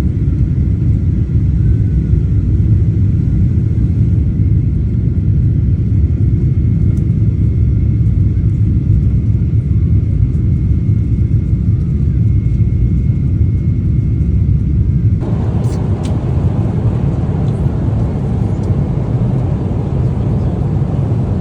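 Steady low rumble inside the cabin of a Boeing 777-300ER airliner. About fifteen seconds in, the noise changes abruptly, becoming fuller and brighter.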